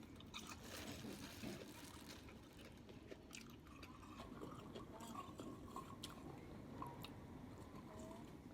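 Faint close-up eating sounds: chewing and biting, with scattered small clicks of mouth and food.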